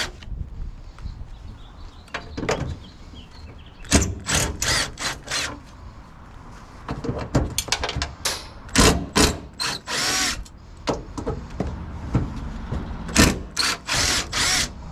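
Cordless drill backing out rusty Phillips screws in repeated short bursts, with one longer run about ten seconds in; some of the screws are stuck tight.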